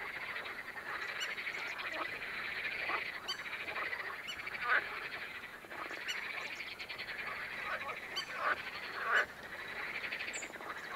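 A continuous chorus of many frogs croaking in a marsh, dense and pulsing, with a couple of louder single calls standing out above it.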